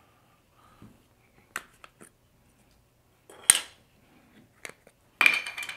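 Sharp clicks and rattles from a Canon 70-200mm Mark III lens and its plastic caps being twisted and handled to mount the lens: a few light clicks, one loud click about three and a half seconds in, and a longer rattling scrape near the end.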